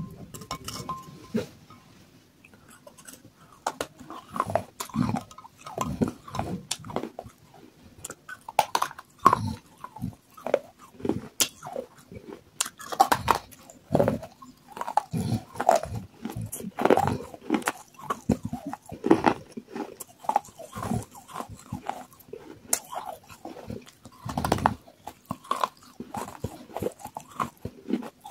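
Biting and chewing of water-soaked terracotta clay pot pieces: many irregular crunches and mouth noises.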